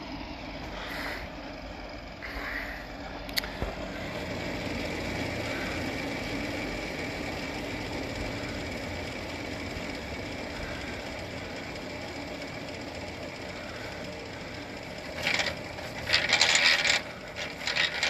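Steady mechanical hum with a few faint steady tones in it. A sharp click about three seconds in, and loud rustling bumps in the last few seconds.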